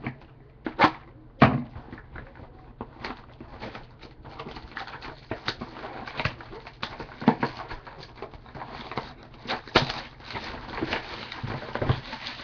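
A sealed box of trading cards being opened: two sharp snaps as the wrapping is broken, then a long run of crinkling, crackling plastic wrap with scattered clicks as it is torn off and handled.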